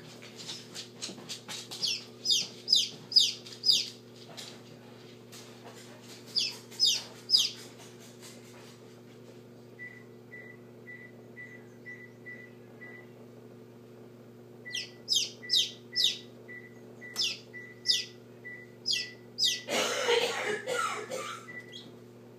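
Hatching Silkie chick peeping in bursts of high, sharply falling peeps, over a steady incubator hum. Near the end there is a short scratchy rustle.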